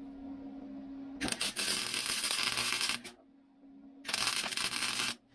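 Wire-feed welder arc crackling in two short bursts, about a second and a half and then a second long, as a washer is welded onto a broken-off bolt inside a hole. A steady low hum runs under and between the welds.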